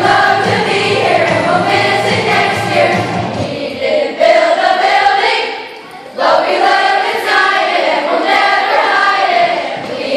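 A group of sixth-grade children singing a song together. A low sound underneath drops out about three and a half seconds in. The singing briefly thins near the middle, then comes back in strongly about six seconds in.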